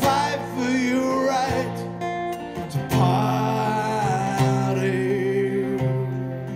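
Strummed acoustic guitar with a man singing long, wordless held notes over it, in two phrases, the second starting about three seconds in.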